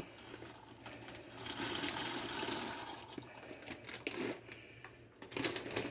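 Pot of boiling water bubbling and hissing as dry macaroni goes in from a plastic bag, the noise swelling about a second in. A few knocks near the end.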